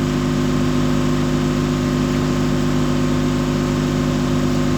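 Ship's engine machinery running with a steady, unchanging drone made of several held low tones.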